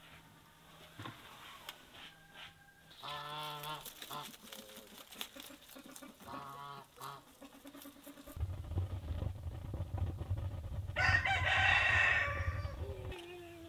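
Chickens calling: two short calls, then a loud rooster crow about eleven seconds in that trails off falling in pitch. A low rumble runs under the later part.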